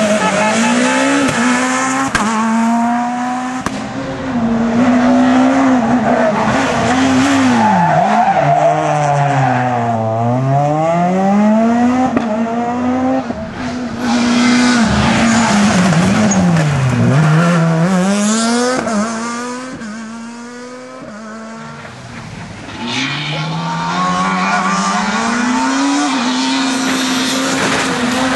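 S2000 rally cars' two-litre four-cylinder engines at full throttle on a rally stage, the pitch climbing through the revs and dropping again at each gear change or pass-by, with two deep dips partway through. A quieter stretch comes about two-thirds of the way in before another car's engine rises again.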